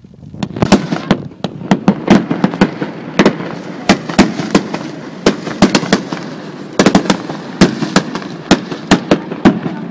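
Aerial firework shells bursting in quick, irregular succession, several sharp bangs a second over a steady crackle of burning stars.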